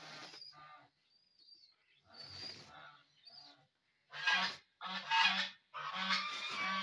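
Geese honking: three loud calls in quick succession from about four seconds in, after a few faint chirps.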